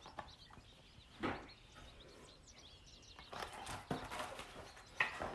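A mostly quiet room with faint, scattered bird chirps in the background. A few soft rustles and a sharp click come from a hardcover picture book being held up and turned.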